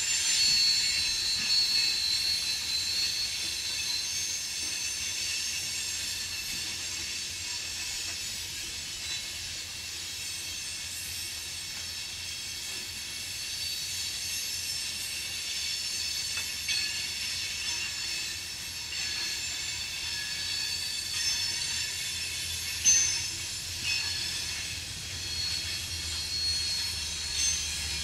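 Loaded rock hopper cars of a freight train rolling through a curve, their wheel flanges squealing against the rail in several steady high tones over a low rumble. A couple of sharp clanks stand out near the end.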